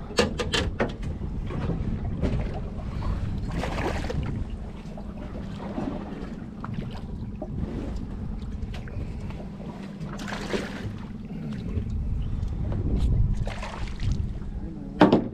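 Mercury outboard motor running steadily at low speed, with wind and water noise coming and going over it. A few sharp clicks right at the start and a loud knock near the end.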